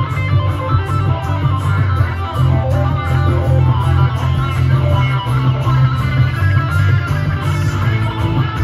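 Amplified acoustic-electric guitar playing an instrumental passage of a live song, with a strong, steady low end under the picked and strummed notes.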